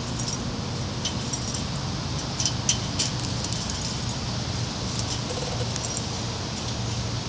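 Chain-link fence wire clinking and rattling lightly as a small terrier climbs it, with a cluster of sharper metallic clinks about two and a half to three seconds in, over a steady low hum.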